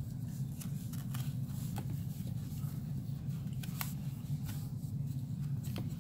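Foam-and-felt vacuum filter being pressed into a plastic dirt bin by hand: soft rubbing with a few light plastic clicks, about two seconds apart, over a steady low hum.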